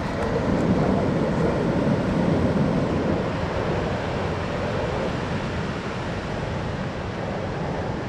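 Ocean surf breaking and washing up the beach, mixed with wind rumbling on the microphone; a steady rushing noise that eases slightly after the first few seconds.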